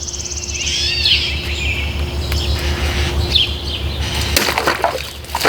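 Birds chirping in short calls several times over a steady low hum. Near the end a quick run of sharp strokes as a Cold Steel Voyager Vaquero folding knife slashes through three bottles.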